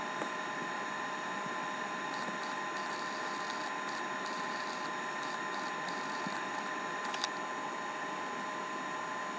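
Steady background hum and hiss with a few fixed whining tones, like a running fan or appliance. Faint ticks come through in the middle, and there is one sharp click about seven seconds in.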